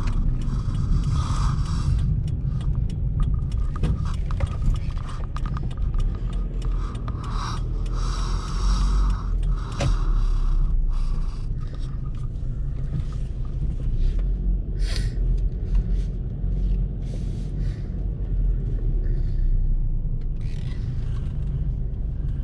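Car cabin noise while driving: a steady low rumble of engine and road, with a higher hiss that comes and goes over the first ten seconds or so and then dies down as the car slows into a parking lot.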